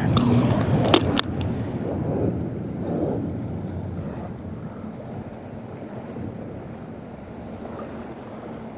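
Steady wind buffeting the microphone over open saltwater, slowly easing off. In the first second or so, a few sharp clicks as the plastic fly box is handled and snapped shut.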